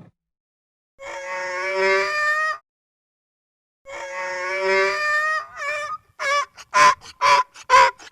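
Donkey braying: two long, drawn-out pitched calls, then a fast run of short bray notes, about two a second, getting louder toward the end.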